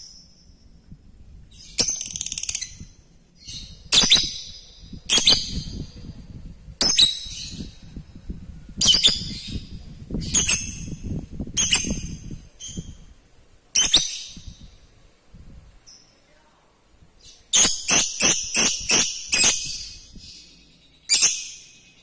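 A lovebird giving sharp, shrill calls, one roughly every second, then a quick run of calls about four a second near the end. A low rumble sits underneath in the first half.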